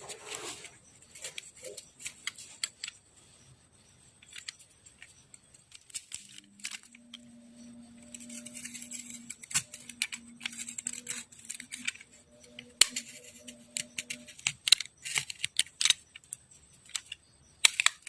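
Irregular clicks and scraping of small handwork, with a steady low hum from about seven to fourteen seconds in.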